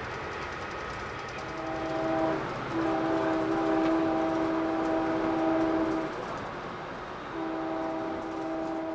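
Train horn sounding three blasts over the rumble of a moving train: a short blast, a long one of about three seconds, then another starting near the end.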